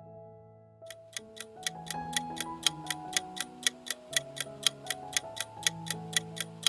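Countdown-timer sound effect: a clock ticking evenly, about four ticks a second with every other tick stronger, starting about a second in. Soft held notes of background music play underneath.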